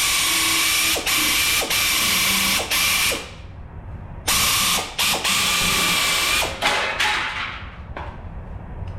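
Pneumatic air shears running in long, hissing bursts with a steady whine, cutting the sheet steel of a wheel-arch patch panel. The tool stops about three seconds in, starts again a second later and trails off near the end.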